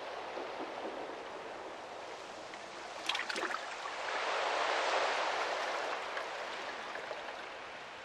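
Sea water washing on the shore, with a few sharp splashes about three seconds in, then a wave surging up and easing away.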